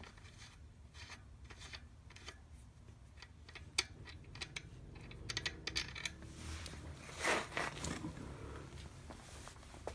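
Scattered small metallic clicks and clinks of hand tools and steel bike parts being handled, with a brief rustle about seven seconds in.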